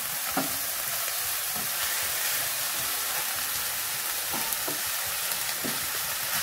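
Sliced bell peppers and onions sizzling in a lightly oiled stainless steel frying pan, with a wooden spatula scraping and tapping against the pan as they are stirred.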